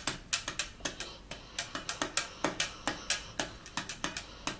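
Knuckles or hands knocking out a quick rhythmic beat on a school desk, several sharp knocks a second, serving as the song's percussion.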